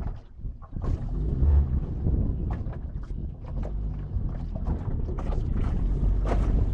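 Wind buffeting the microphone in a low rumble while water splashes irregularly against a small boat moving along a river.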